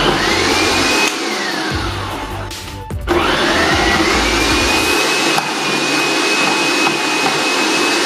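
Hamilton Beach Stack & Snap food processor's 450-watt motor spinning the shredding disc as cold cheddar is pushed through the feed chute, with a high whine over a low rumble. About a second in the whine sinks in pitch as the motor slows. About three seconds in it rises back up to full speed and runs steadily.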